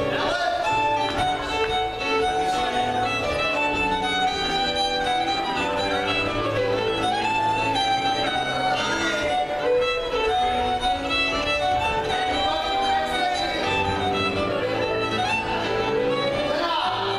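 Live contra dance tune: a fiddle plays the melody over keyboard accompaniment.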